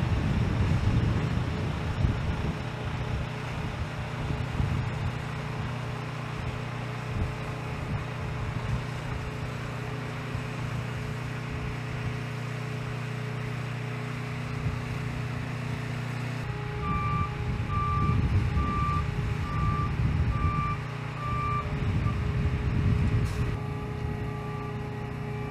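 Heavy-haul truck's diesel engine running steadily at low revs; about two-thirds of the way in a backup alarm starts beeping, about one and a half beeps a second, over the engine, pausing briefly and then going on more faintly near the end.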